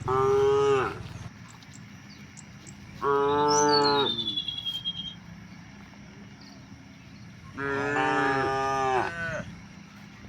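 Cattle mooing: three separate calls, the first at the start, the second about three seconds in, and the last, the longest, near the end.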